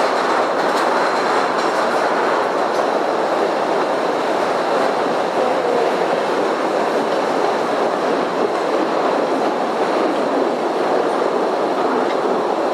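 Postojna Cave's tourist train running steadily along its track, a continuous rumble of wheels on rails heard from aboard.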